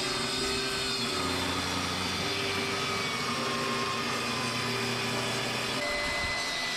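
Ryobi table saw running steadily, its blade ripping a wooden post lengthwise.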